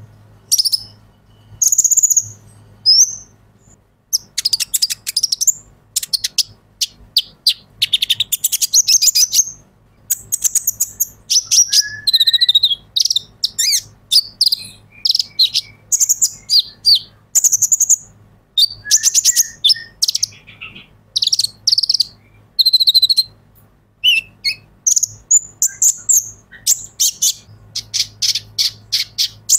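Male van Hasselt's sunbird (kolibri ninja) singing: a rapid run of very high, thin trills and twitters, phrase after phrase with only short pauses.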